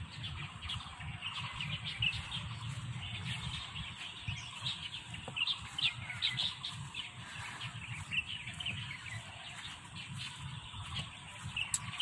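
Small birds chirping in many short, quick high calls, over a low steady background rumble.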